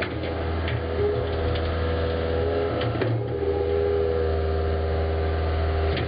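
Caterpillar 289C2 compact loader's diesel engine running steadily, with a steady whine over the low engine note and a short click about three seconds in.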